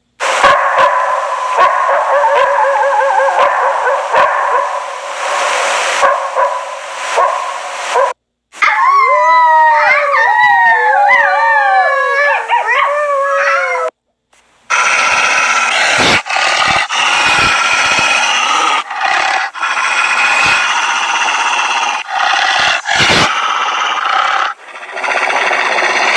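Wolves howling in chorus, many voices gliding up and down together with yips mixed in. The recording breaks off briefly about 8, 14 and 24 seconds in, each time starting again with a different chorus.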